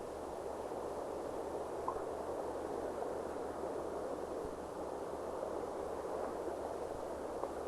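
Steady soft hiss of underwater ambience, with no distinct events.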